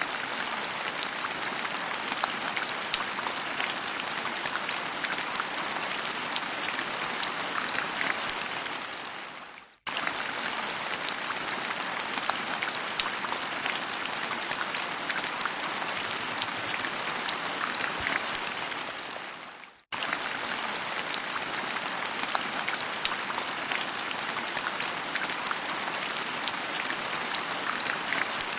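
Steady rain with many small drop patters, a recorded rain sound effect looped about every ten seconds: it fades out briefly twice and starts again suddenly each time.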